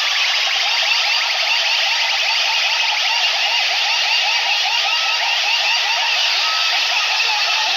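Several DJ sound systems blaring at once, a dense clash of siren-like warbling tones that rise and fall several times a second.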